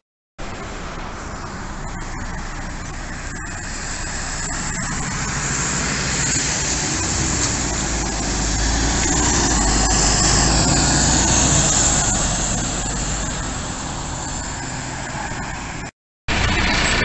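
A bus driving past: engine and road noise build to a peak partway through, with a deep engine hum, then ease off. The sound drops out briefly just after the start and again near the end.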